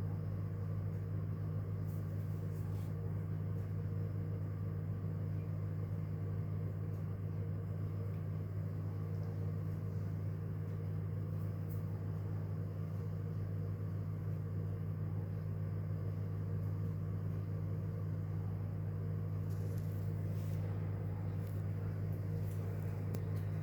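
Steady low hum of a running kitchen appliance, unchanging throughout, with a few faint light ticks.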